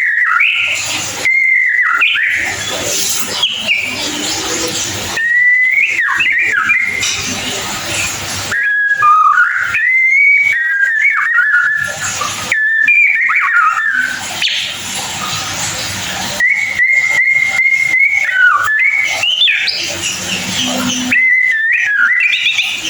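White-rumped shama (murai batu) singing its rapid 'ngeriwik' chatter: phrase after phrase of whistled notes mixed with scratchy chattering, broken by brief pauses, with one longer held whistle about halfway through.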